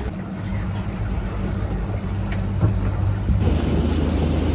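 Motorboat engine running with a steady low drone. About three and a half seconds in it changes to the engine, wind and water rush of a boat moving across open water.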